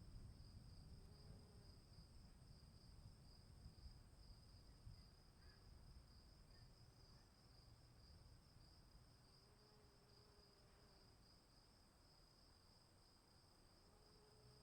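Faint crickets chirping in a continuous, fast-pulsing high trill, with a second thinner high tone held steady; a low rumble underneath fades away over the first half.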